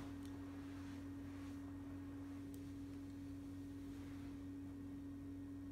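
A steady low hum holding one unchanging tone, with a few faint ticks.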